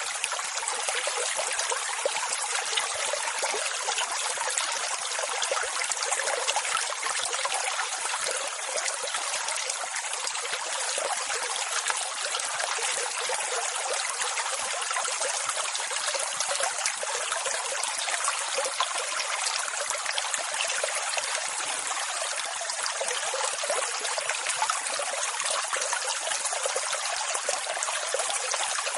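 Water rushing steadily and evenly: a continuous hiss with no deep rumble and no rise and fall of separate waves breaking.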